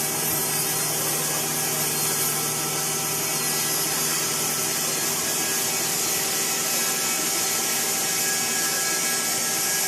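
A 5-axis CNC wood router's HSD spindle running and cutting wood: a steady whine of several fixed tones over an even hiss, with no pauses.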